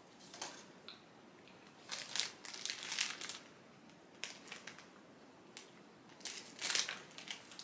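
Clear plastic wrapper of a polvorón shortbread cookie crinkling in several short bouts as it is handled and opened.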